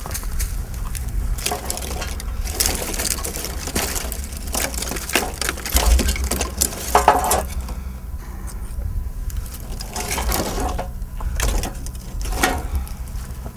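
Dry brushwood being gathered and bundled by hand, with its twigs and branches rustling, crackling and snapping in irregular bursts over a steady low rumble.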